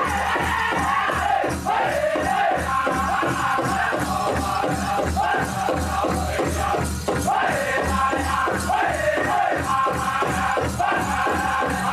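Powwow drum group singing a men's chicken dance contest song together, over a big drum struck in a steady quick beat.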